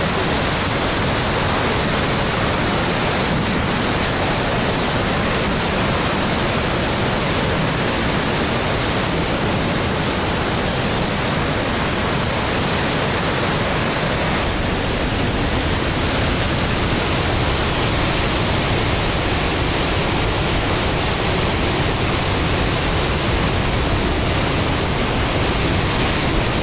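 Fordyce Creek in high spring flow, white water rushing over the falls and rapids as a loud, steady, unbroken wash of noise. About halfway through the highest hiss drops away abruptly.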